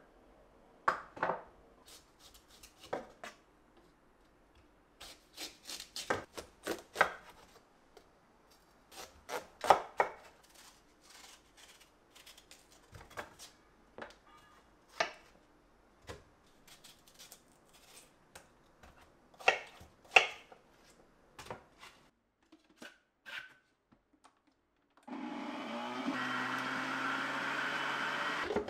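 A knife cutting watermelon on a wooden cutting board: scattered knocks and scrapes of the blade through the rind and onto the board. About 25 seconds in, a stainless-steel countertop blender starts and runs steadily, blending the watermelon into juice.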